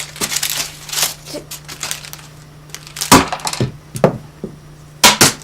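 Things being rummaged through and knocked about: rustling and crinkling at first, then several sharp knocks and bangs in the second half.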